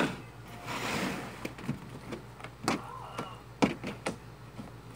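Soft homemade jiggly slime, made from glue and shaving cream, being squeezed and poked by hand on a table: a brief rustling swish about half a second in, then a run of sharp clicks and pops as it is squished.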